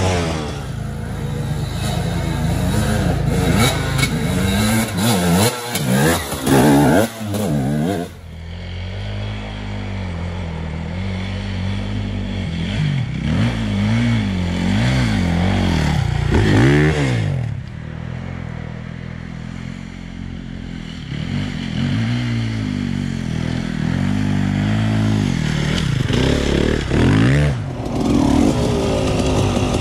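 Enduro dirt bike engine revving up and down as the throttle is worked over a rough forest trail, its pitch rising and falling every second or two. The sound changes abruptly about eight seconds in, and there is a short dip near the end.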